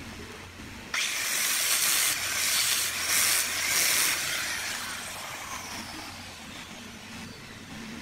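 Angle grinder with a sanding disc switches on about a second in and sands the mitred joint of a small wooden moulding corner: a loud hiss that swells and dips for about three seconds. It is then switched off and the whine falls away as the disc winds down.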